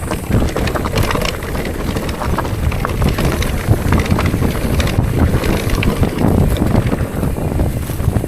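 Wind rumbling on the microphone of a moving bicycle on a forest road, with tyre noise and scattered rattling clicks.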